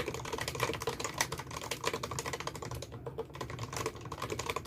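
Fast typing on a mechanical keyboard: a dense, continuous run of key clacks, thinning briefly about three seconds in.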